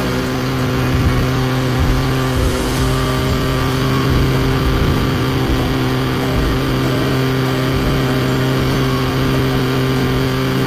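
Homemade mini generator model running with its handheld fan spinning: a steady engine-like drone with a low hum and a stack of overtones that holds even throughout.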